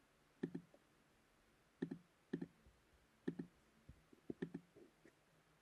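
Faint computer mouse clicks, about ten short clicks at irregular intervals, some in quick pairs, with near silence between them.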